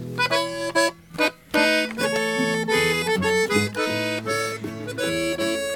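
Button accordion playing a lively melody of quick, changing notes over two strummed acoustic guitars. This is live Mexican music, an instrumental passage with a brief break about a second in.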